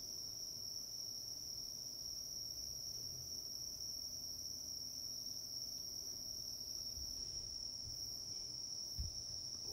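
Insects trilling steadily at one high pitch, unbroken throughout, over a low background rumble, with a soft thump near the end.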